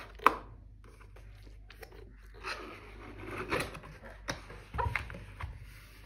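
A cardboard keyboard box being opened by hand: one sharp snap of cardboard just after the start, then cardboard rustling and scraping as the box is slid and its lid lifted open.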